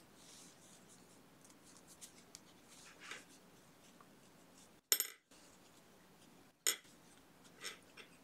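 Quiet handling of crocheted yarn, a metal crochet hook and stitch markers: faint rustling with a few sharp little clicks, the loudest about five seconds in and another nearly two seconds later.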